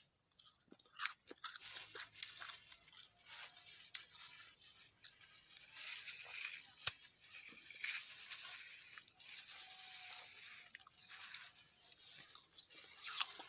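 Someone biting into and chewing juicy citrus fruit: irregular wet crunching and tearing, with scattered sharp clicks.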